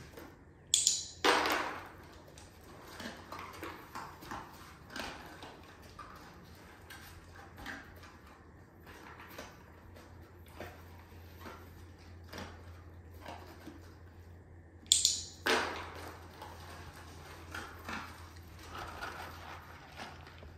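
A dog rooting through a cardboard box lined with paper for its breakfast: irregular rustling, scraping and snuffling of cardboard and paper, with two louder, sharper noises about a second in and again about fifteen seconds in.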